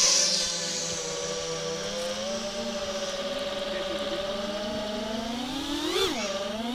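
FPV racing quadcopter's brushless motors (T-Motor F60 Pro IV 2550kv on 5-inch props) whining in flight. The pitch holds fairly steady, climbs gradually, then swoops sharply up and down near the end with quick throttle changes.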